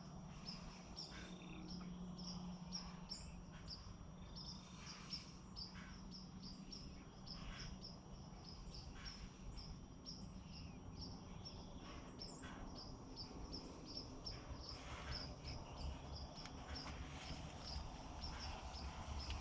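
Faint outdoor ambience: a short, high chirp repeating steadily about three times a second over a low, steady hum, with a few soft rustles.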